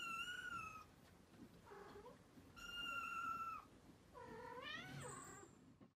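Domestic cat meowing: several thin, high meows, each under a second long, the last one rising in pitch.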